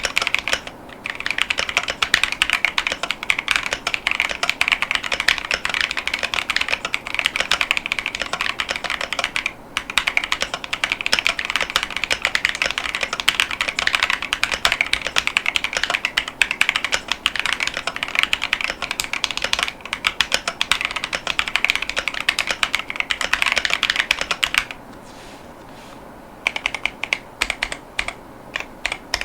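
Steady fast typing on a KiiBoom Phantom 81 mechanical keyboard fitted with Leobog Ice Soul 30 gf tactile switches and PBT keycaps: a dense run of keystrokes with a couple of brief pauses, and a stop of about two seconds before the typing resumes near the end.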